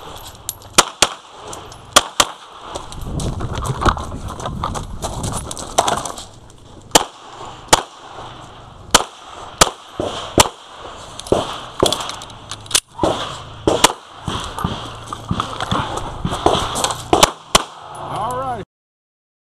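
Springfield XD(M) semi-automatic pistol fired rapidly, shots often coming in quick pairs, about fifteen in all. Between the strings of fire there is scuffling movement noise as the shooter moves between positions. The sound cuts off abruptly near the end.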